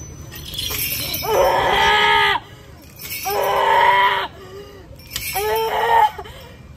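A woman screaming in three loud wailing cries, the first two each over a second long, the third shorter. These are the cries of a woman in possession trance during an exorcism.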